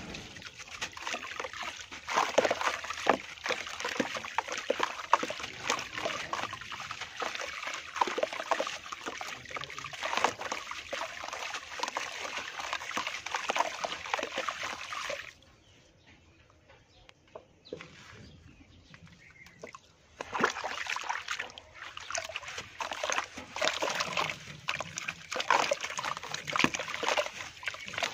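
A dry, dusty block being squeezed and crumbled by hand in a plastic tub of water: crackling crumbles, sloshing and splashing water. It goes much quieter for about five seconds in the middle, then the crumbling and sloshing start again.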